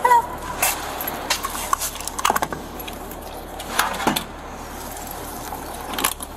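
Handling noise and movement: scattered clicks, knocks and rustling at irregular moments over a steady low hum, with a brief whimpering cry right at the start.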